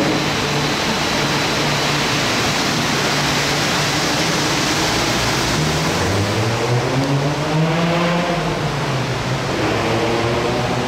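Rubber-tyred Wenhu line metro train running through the station with a steady rush, its motor whine rising in pitch about six seconds in and then falling away.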